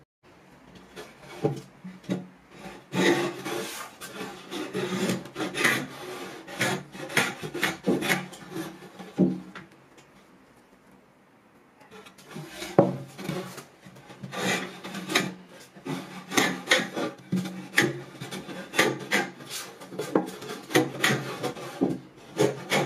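Wooden hand plane being pushed along a wooden board in repeated strokes, its blade shaving the wood with a rasping hiss and taking curled shavings. There is a pause of about two seconds in the middle.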